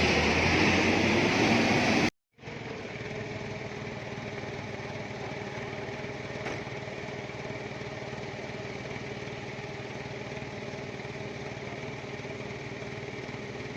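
Loud rushing noise for about two seconds, then an abrupt cut to a vehicle engine running steadily at a constant pitch.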